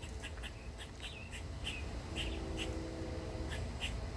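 Outdoor ambience of birds chirping in short, separate notes, about two a second, with a faint steady hum in the middle.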